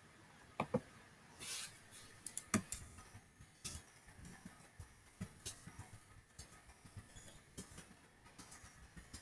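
Computer keyboard typing: faint, irregular keystrokes as a sentence is typed.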